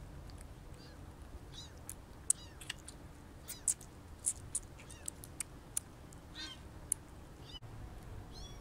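Very young kitten giving short, high squeaky mews while suckling from a feeding bottle, with sharp little clicks scattered among them, most of them around the middle.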